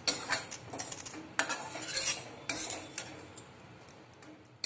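Metal spatula scraping and clinking against a metal kadhai in a string of short strokes while roasted crumbs are scooped out of the pan, fading toward the end.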